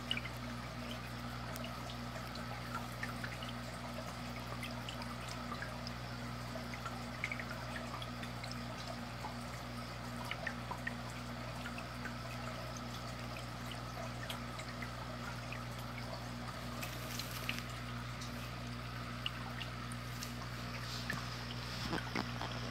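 Aquarium air bubbles trickling and popping steadily from the tank's sponge filters, over a steady low hum, growing a little louder near the end.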